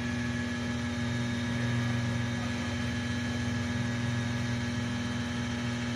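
A steady low hum that holds unchanged throughout, with no distinct knocks or pouring sounds standing out.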